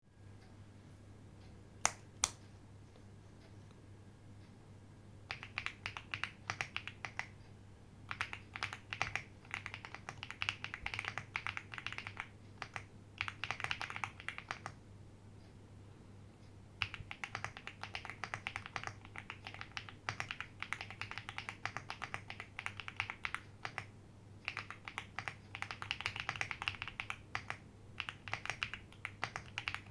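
Slow typing on a plateless, fully foamed JRIS65 mechanical keyboard with tape mod, Akko Cream Blue Pro V3 switches and doubleshot ABS keycaps: runs of separate keystrokes with short pauses between them. Two sharp clicks come about two seconds in, before the typing starts.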